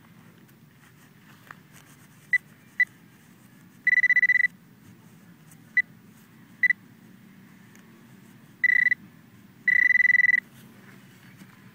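Handheld metal-detector pinpointer beeping at one steady high pitch as it is probed into grass over a buried metal target. It gives short beeps and several longer held tones at irregular intervals, signalling metal close to the tip.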